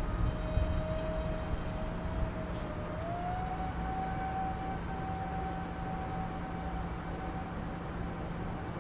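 Electric motor and propeller of a radio-controlled aerobatic airplane whining steadily, its pitch rising a step about three seconds in. Wind rumbles on the microphone underneath.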